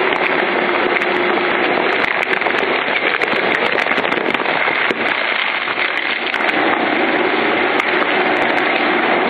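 Electric twin-shaft industrial shredder (Lion Shredder EVO) crushing mixed waste and plastic bags: loud, continuous crackling and crunching with many sharp snaps over a steady machine hum. The shredder senses the load and shifts from its slow energy-saving standby speed back to normal running; the hum weakens about two seconds in and comes back about six and a half seconds in.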